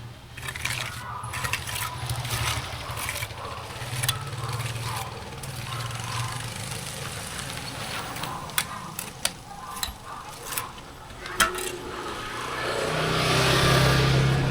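Road traffic: a motor vehicle's engine hums steadily, with scattered sharp clicks and knocks, and a vehicle passes close and grows louder near the end.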